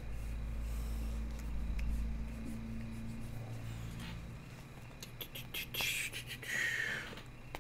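Stylus drawing on a graphics tablet: a run of quick taps and short scratches in the second half, then two longer scratchy strokes near the end. A low steady hum sits under the first half.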